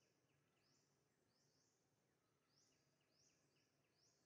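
Near silence: a very faint outdoor background with short high chirps repeating irregularly, a couple each second.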